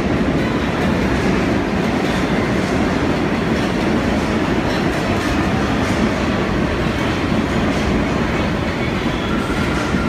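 New York City subway train running at speed, heard from aboard: a loud, steady rumble with the wheels clattering over the rails.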